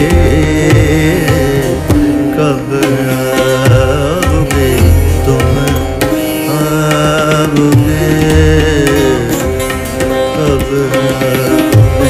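Hindustani thumri in raag Bhairavi: tabla playing a steady cycle of deep bass and sharp treble strokes under a gliding, ornamented melodic line.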